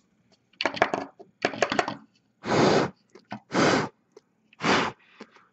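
Small brushless drone motor parts being handled, with sharp crackly clicks, then short puffs of breath blown at the motor, about one a second, to clear sand out of it.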